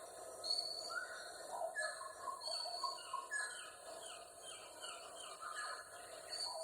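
Rainforest ambience: several birds calling in short, overlapping chirps and whistles, over a steady background chorus of insects.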